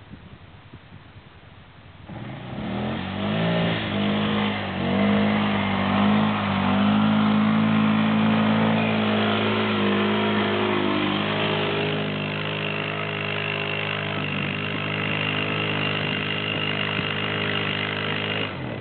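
ATV engine coming in about two seconds in, revving up and down a few times, then running at a steady speed, stopping suddenly near the end.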